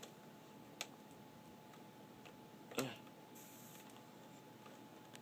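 Quiet room tone with a few faint handling clicks, the two clearest about a second in and just before three seconds in.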